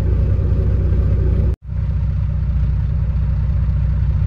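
Cummins ISX inline-six diesel in a Kenworth W900 idling at about 600 rpm, heard from inside the cab as a steady low pulsing rumble. It drops out for an instant about a second and a half in, then carries on unchanged.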